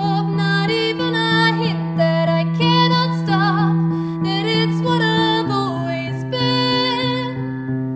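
A woman singing a song to her own accompaniment on a Roland FP-80 digital piano: repeated chords over a held low note that steps lower a little past halfway. The voice stops near the end while the piano plays on.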